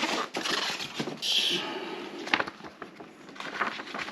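Cardboard and plastic packaging rustling and scraping as a boxed RC loader is pulled out, with a short swish about a second in, followed by a few light knocks and clicks.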